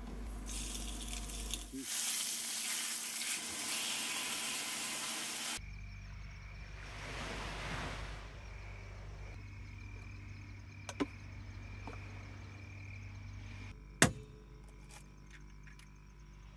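Food sizzling as it fries, a loud hiss that stops abruptly about five and a half seconds in; then a faint steady hum with two sharp clicks, the louder one near the end.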